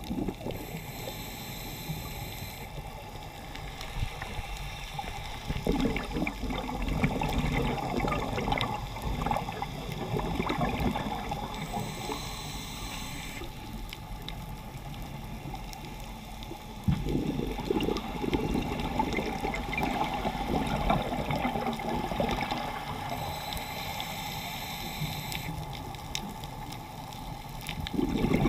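Scuba diver breathing underwater through a regulator, heard from close by: three slow breaths about eleven seconds apart. Each starts with a thin whistling hiss as the diver draws air, then a rush of exhaled bubbles.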